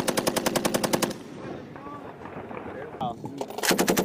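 M240 belt-fed machine gun firing 7.62 mm rounds in bursts, roughly a dozen shots a second. One burst stops about a second in, and a second burst starts near the end.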